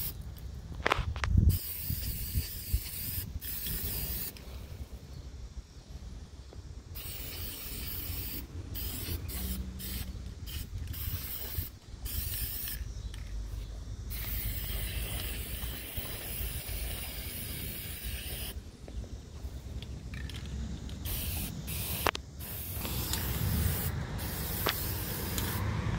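Aerosol spray paint can hissing in repeated bursts, some short and some several seconds long, with pauses between, as black paint is sprayed onto small metal parts. A single knock sounds about a second in.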